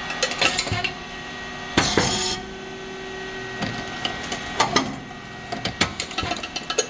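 SYP4509 rice cake popping machine running: a steady hum from its motor and hydraulic pump under repeated clicks and knocks of the mould and feeding mechanism, with a short loud noisy burst about two seconds in as a cycle pops.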